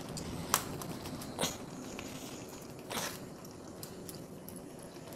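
Three sharp clicks and crunches from the hard shell of a large mud crab being handled for cleaning, the last one about three seconds in a little longer and crunchier.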